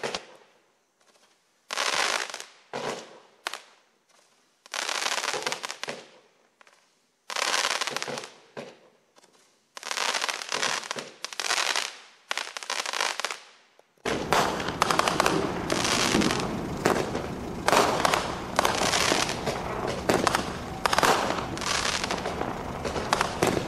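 Roman candles firing: for about the first half, short separate sizzling bursts in quick groups, then a dense, unbroken crackling to the end.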